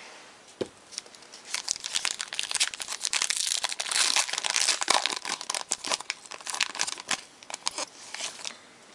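Foil wrapper of a football trading card pack crinkling and tearing as it is opened by hand, after a single light click under a second in. The crackling starts about a second and a half in and dies away shortly before the end.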